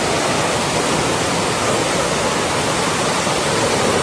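Floodwater rushing down a street as a fast torrent: a loud, steady wash of moving water.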